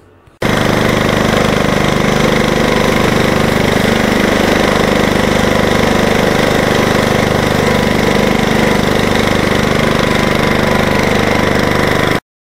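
1975 Gilson Hydro-16 garden tractor's engine running loud and steady while mowing with the deck, heard close from the driver's seat. It starts suddenly about half a second in and cuts off abruptly just before the end.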